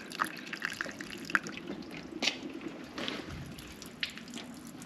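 Water being poured onto a car's bodywork, splashing and dripping in irregular drops with a sharper splash about two seconds in: a water leak test to find where rain gets into the cabin.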